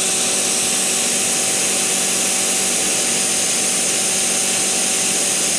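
Pressure washer running with the trigger gun held open: a loud, steady hiss of the water jet over the even hum of the pump motor, at full pressure of about 105 bar.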